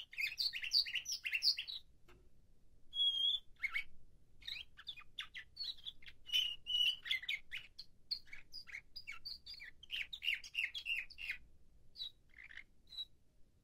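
Nightingale-song canary singing in phrases of quick chirps and trills, with a short steady whistle about three seconds in and brief pauses between phrases. It is in its song-training (tertip) period, slowly coming into form.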